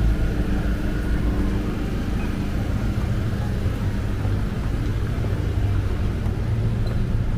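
An engine running steadily, giving a low, even hum with no change in pitch.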